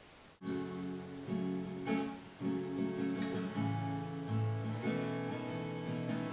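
Acoustic guitar strummed, starting about half a second in, with the chords changing every second or so.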